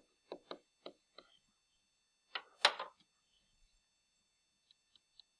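Light taps of a pen stylus on a tablet while numbers are handwritten, about five quick ticks in the first second or so. A brief louder noise comes about two and a half seconds in, and a few faint clicks near the end as calculator keys are clicked.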